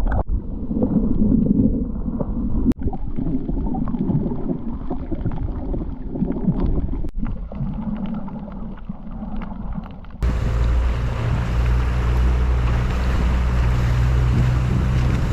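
Muffled water sloshing and churning close around the camera, then, after a sudden change about ten seconds in, a boat's outboard motor running steadily under a hiss of wind and water.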